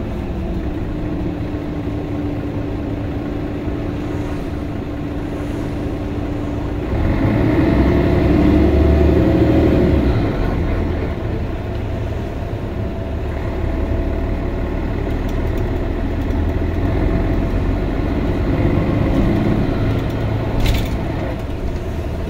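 Interior running sound of a Mercedes-Benz Citaro G (O530G) articulated bus: diesel engine, Voith DIWA automatic transmission and road noise heard from inside the cabin. A steady whine runs through the first third, and the sound grows louder for about three seconds after it. A short click comes near the end.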